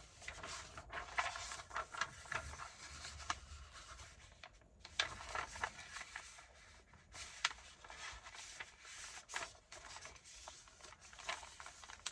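Paper being handled: sheets sliding, rubbing and rustling in irregular strokes, with brief pauses a little before halfway and again about two-thirds through.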